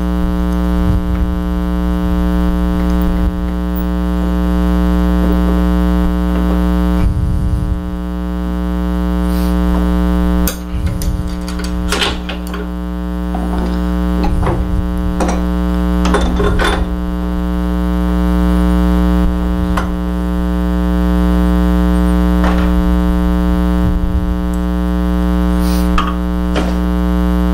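Loud steady electrical mains hum, with scattered metallic clicks and knocks from a wood lathe's chuck being handled and fitted, mostly between about 10 and 17 seconds in.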